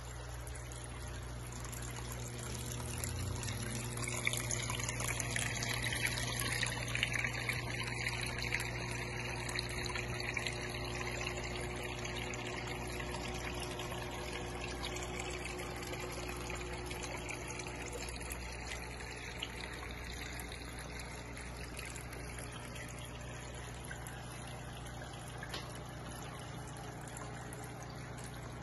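Water trickling and splashing down the waterfalls of a paludarium, returned by small aquarium pumps through a hose, over a steady low hum. The splashing grows louder for several seconds in the first half, then settles.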